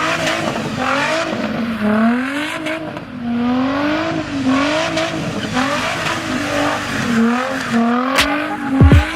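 Car engine revving up and down over and over, its pitch climbing and falling back about once a second. Near the end come a couple of sharp knocks and a loud low falling sweep.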